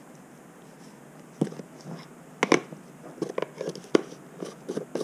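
Irregular clicks and knocks of plastic seasoning containers being handled: a shaker cap worked and containers tapped down on the countertop. It starts about a second and a half in, with the sharpest click about a second later, then scattered lighter taps.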